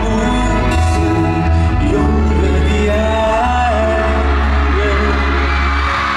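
A male singer singing a slow pop ballad live into a handheld microphone, with a full backing track and a strong bass line through the concert hall's PA. Crowd noise rises near the end.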